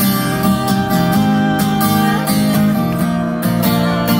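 Acoustic guitar strummed in a steady rhythm, chords ringing.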